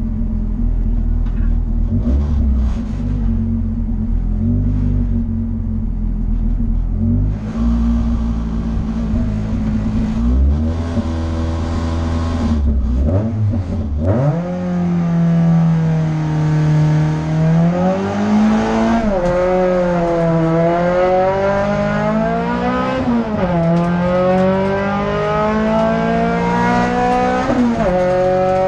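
Renault Clio F2000 race car's engine heard from inside the cockpit: it runs at low revs at the start line with a few rises in revs, then about halfway in the car launches. It accelerates hard at full throttle, the revs climbing and dropping at each of three quick upshifts.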